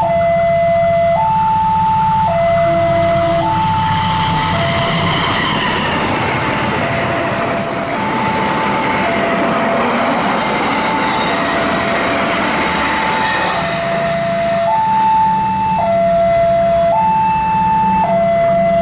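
Railway level-crossing warning alarm sounding a repeating two-tone high-low signal, each tone about a second long, as a fast train passes, its rush of wheel and rail noise swelling through the middle and fading away.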